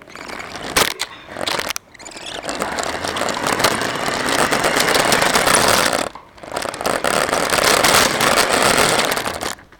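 Radio-controlled car driving, heard through a camera mounted on the car: a loud, rattly mix of motor and tyre noise. It drops out briefly about two seconds in and again about six seconds in, then resumes each time.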